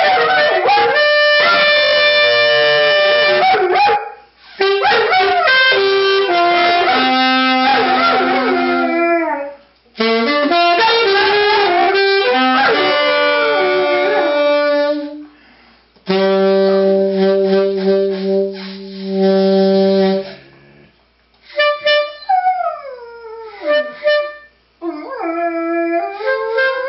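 A golden retriever howling along with a saxophone, in five phrases separated by short pauses. There are long steady notes about two-thirds of the way through and pitches sliding downward near the end.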